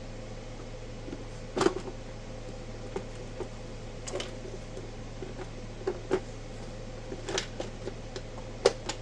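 Scattered sharp clicks and light knocks from hands working the case of an HP test instrument open, about six of them, the strongest about a second and a half in and near the end, over a steady electrical hum.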